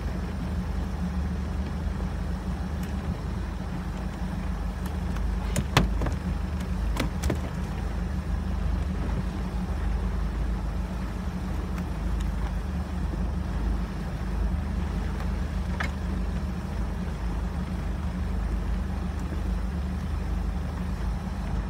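Boat engine running steadily at slow trolling speed, a constant low rumble. A few sharp clicks come about six and seven seconds in.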